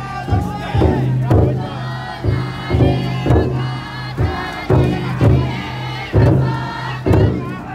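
Large taiko drum inside a futon daiko festival float beaten in a steady rhythm, roughly two strikes a second, while the crowd of bearers chants and shouts together.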